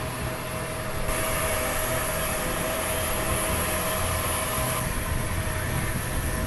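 Jet aircraft engines running, a steady whine over a low rumble, growing brighter about a second in and easing back near the end.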